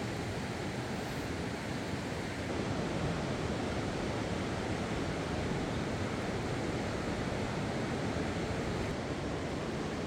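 Steady, even rushing noise with no separate sounds in it.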